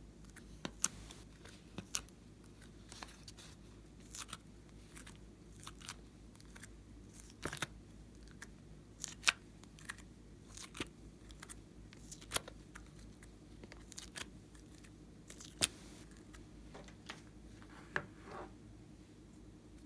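Slime being handled and pressed: scattered sharp clicks and pops at irregular intervals, with a softer squelch near the end, over a faint steady hum.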